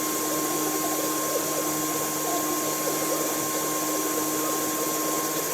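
Machine tool running steadily while machining: a constant whine over an even hiss.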